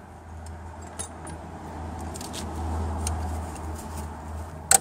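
Light metallic clicks of a ratcheting box wrench being handled at the transmission's selector, over a low hum, with one sharp click near the end.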